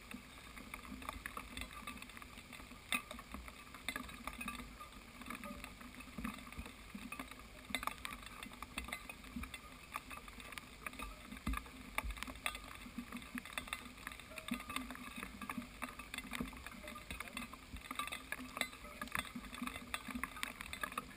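Raindrops tapping irregularly on the camera's waterproof housing over a faint steady hiss of rain.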